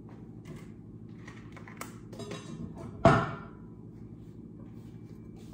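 Kitchen handling sounds: a few light clicks and one solid thunk about three seconds in, like a cupboard door or dish being set down, over a steady low hum.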